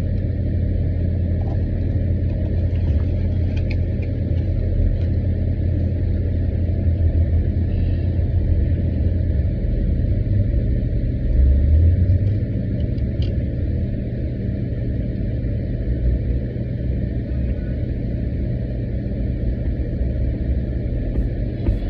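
Steady low rumble of an idling car engine, swelling briefly louder about halfway through.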